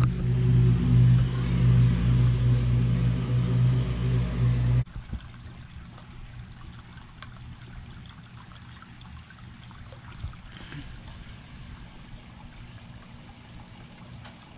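A loud, steady low hum that cuts off abruptly about five seconds in, followed by water from a small pond pump's spout trickling and pouring steadily into a backyard pond.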